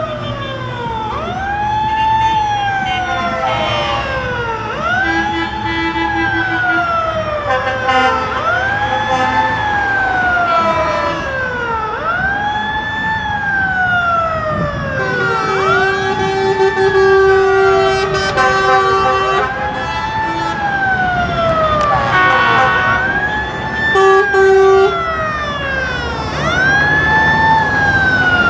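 A siren wailing over and over, each cycle rising quickly and falling away more slowly, about every two and a half seconds. Several long, steady horn blasts sound over it, the longest about halfway through, and truck engines run beneath.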